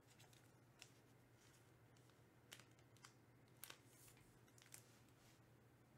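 Near silence, broken by about five faint, brief plastic rustles and clicks from a trading card being slid into a clear plastic penny sleeve.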